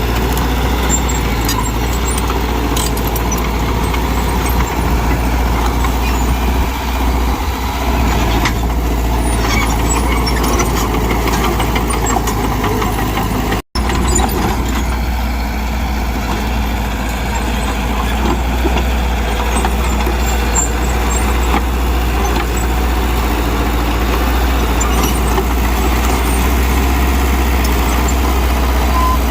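Diesel engine of a Mitsubishi BD2G bulldozer running steadily under load, with a deep, continuous rumble. The sound cuts out for an instant about halfway through.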